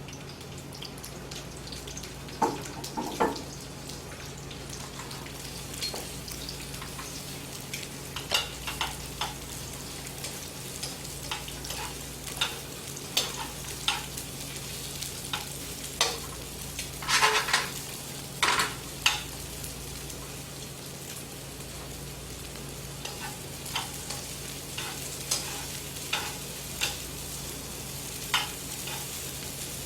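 Sliced onion sizzling in vegetable oil in a small wok, with a cooking utensil clattering and scraping against the pan as it is stirred; the loudest cluster of strikes comes about halfway through.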